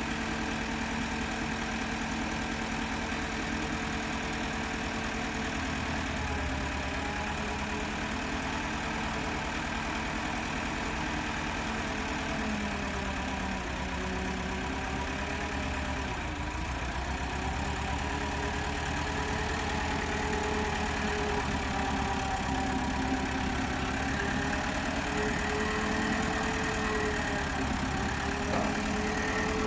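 A vehicle engine running steadily at idle, its pitch wavering gently up and down in the second half and growing a little louder near the end.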